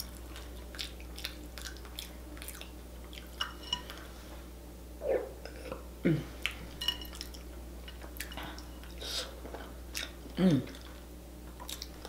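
Close-up wet chewing and lip smacking of a person eating sauce-soaked potatoes and corn with her fingers, full of small sticky mouth clicks. Three short hums, the last two falling in pitch, come about five, six and ten seconds in.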